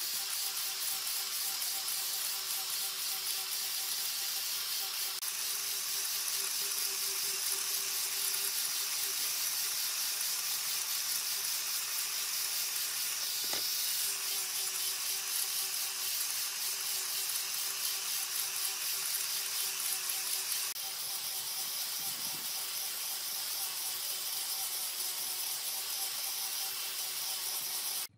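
Angle grinder fitted with a sanding disc running steadily, its motor whine constant while the abrasive hisses against a round wooden rail being sanded smooth. The sound drops a little about three-quarters of the way through.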